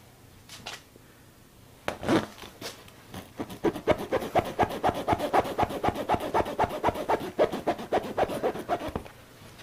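Steel tire-repair tool worked rapidly back and forth in a tire puncture, a fast rasping scrape of about five strokes a second, after a couple of knocks. The hole is too tight for the plug tool to go in.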